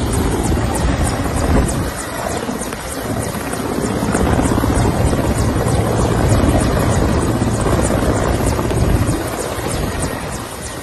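Military helicopter hovering low, its rotor chopping in a fast, even beat over steady engine noise, dipping a little in loudness about two seconds in and again near the end.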